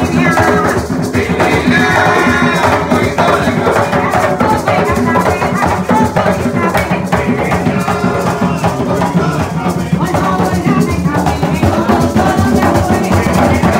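Puerto Rican bomba: several barrel drums (barriles de bomba) played by hand in a steady driving rhythm, with a maraca shaking along.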